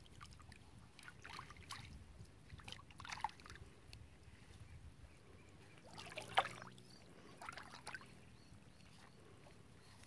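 Light water splashes and trickles, a string of short irregular splashes with the loudest about six seconds in.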